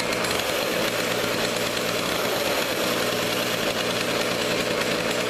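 A 1992 McCulloch Mac Cat chainsaw's two-stroke engine running steadily at an even speed, just after it was pull-started from cold. It has caught and keeps running, the sign that the ignition coil fault is cured.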